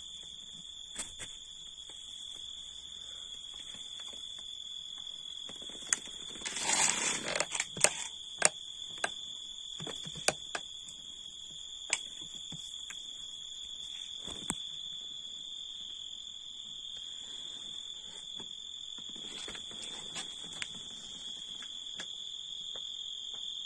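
Crickets trilling in one steady, unbroken high-pitched tone. About six seconds in there is a short burst of rustling, then a scattered run of sharp clicks and taps.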